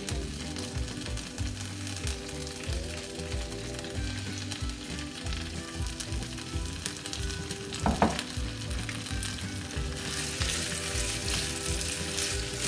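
Soaked, drained basmati rice sizzling in hot oil in a frying pan as it is tipped in and then stirred with a silicone spatula. There is a single knock about eight seconds in, and the sizzle grows louder near the end once the stirring starts.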